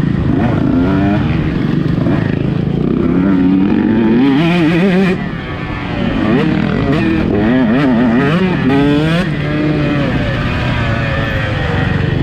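Two-stroke motocross bike engine revving up and down under the rider's throttle, its pitch rising and falling again and again. It briefly drops off about five seconds in.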